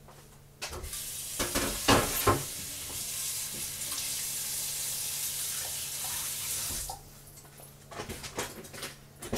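Kitchen tap running in a steady stream for about six seconds, turned on and off abruptly, with a few clunks of dishes or a pan near its start. A few light clicks follow after the water stops.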